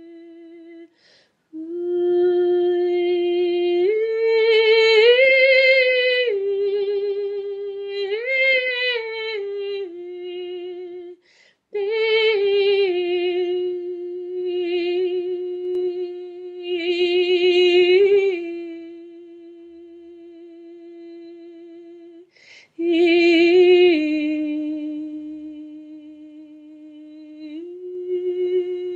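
A woman's voice singing wordless long held tones, unaccompanied, with a slight waver. It mostly stays on one low note and swells up to higher notes a few times before settling back. It breaks off briefly three times.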